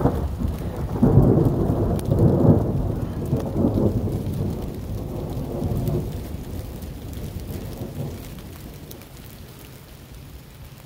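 A long roll of thunder, loudest in the first few seconds and fading away over several seconds, over steady heavy rain with individual drops ticking close by.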